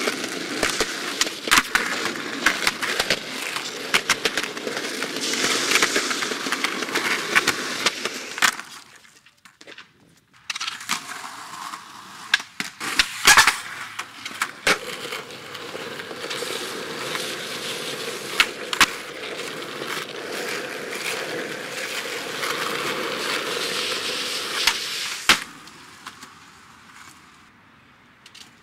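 Skateboard wheels rolling on concrete, with sharp clacks of the board popping and landing scattered through. The rolling cuts out for about two seconds roughly a third of the way in and drops away near the end.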